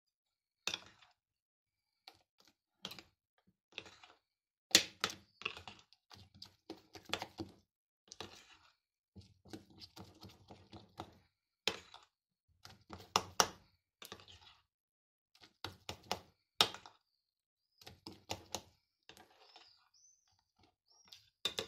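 A metal spoon stirring thick, sticky flour-water-yeast batter in a glass bowl: irregular clicks and scrapes as the spoon hits and drags along the glass, in quick clusters.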